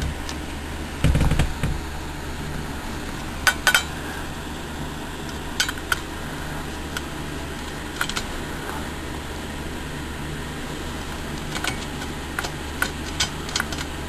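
Small metallic clicks and clinks of a screw being driven into a desktop computer's sheet-metal hard-drive cage, spaced out and bunching together near the end, with a louder dull thump about a second in.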